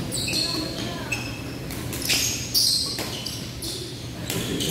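Badminton doubles rally in a large echoing hall: several sharp racket hits on the shuttlecock, mixed with players' shoes squeaking and scuffing on the court floor, over a steady low hum.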